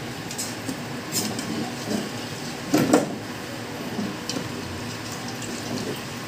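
Metal ladle knocking and scraping against a cooking pot a few times, loudest just before three seconds in, over steady background noise.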